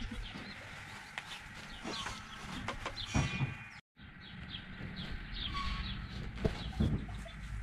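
American Collie puppies squeaking and whimpering in many short, high-pitched squeaks, with a brief dropout to silence near the middle.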